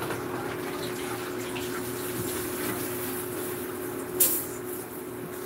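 Water running from a kitchen tap, with a steady hum under it and one sharp clack about four seconds in.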